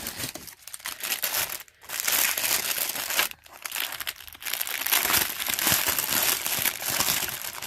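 Clear plastic bags of packaged jewelry crinkling as they are handled and opened, in irregular bursts with a few short pauses.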